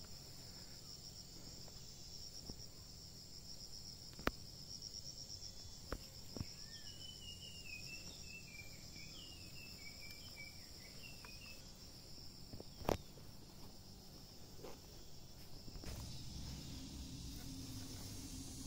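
Insects trilling steadily, a high pulsing buzz throughout. A string of short high chirping notes runs through the middle, and a few sharp clicks sound here and there, the loudest about two-thirds of the way through.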